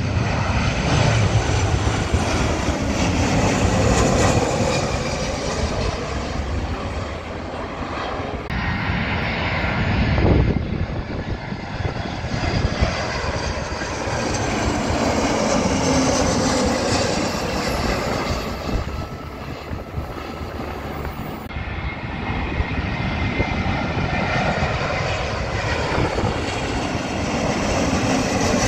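Jet airliners passing low overhead on final approach, their engine noise swelling and fading as each goes over: a Jet2 Boeing 737, then an easyJet Airbus A320, then a Lufthansa Airbus A320neo. The sound changes abruptly about 8 seconds in and again about 21 seconds in, where one pass cuts to the next.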